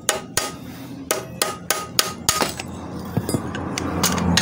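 Hand hammer striking steel, about three ringing metallic blows a second, driving a Colt Diesel transmission bearing off its shaft. The blows thin out after about two and a half seconds into a few scattered knocks over a rougher scraping noise.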